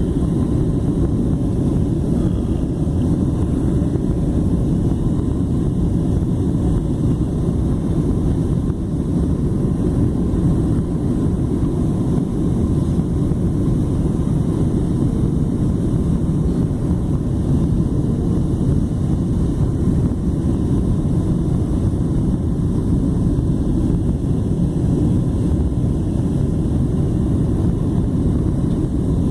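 Steady low rumble of a jet airliner heard from inside the passenger cabin during the descent on approach: engine and airflow noise, unbroken and even.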